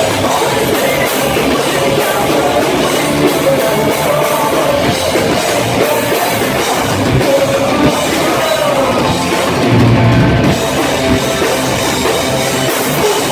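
Live rock band playing loudly, a full band with a drum kit, in the style of punk rock and melodic hardcore. The band surges louder, with a heavier low end, for a moment about ten seconds in.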